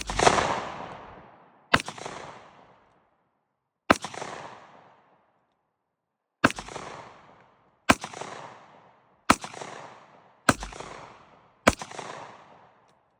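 Eight single shots from a Ruger Redhawk .357 Magnum revolver firing 125-grain Magtech loads, spaced unevenly about one to two and a half seconds apart. Each crack is followed by an echo that dies away over a second or so.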